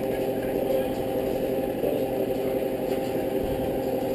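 A steady motor-like hum, with a few soft plops as chunks of potato and carrot are tipped from a steel bowl into a pot of simmering beef broth.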